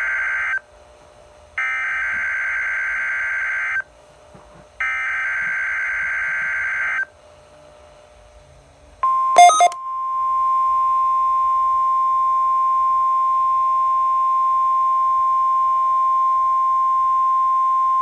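NOAA Weather Radio SAME alert header heard through a Midland WR120 receiver. The end of one buzzing digital data burst is followed by two more full bursts, each about two seconds long and about a second apart. About nine seconds in comes a brief crackle, then the steady single-pitch 1050 Hz warning alarm tone, held to the end; this is the opening of a Required Weekly Test.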